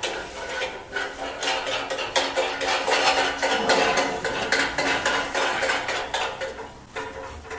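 Metal parts of a screen printing press clinking and rattling as a pallet is fitted onto its steel arm bracket: a dense run of small knocks and clatters, busiest in the middle.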